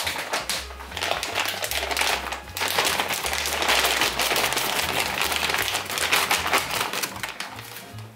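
A bag of meatballs being poured into a slow-cooker crock: the plastic bag crinkles and the meatballs clatter and tap in a dense run, thinning out about seven seconds in. Background music with a low bass line plays underneath.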